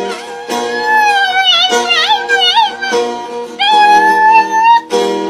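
A dog howling along to a strummed acoustic guitar: a wavering howl through the first few seconds, then one long steady howl near the end, over chords strummed about once a second.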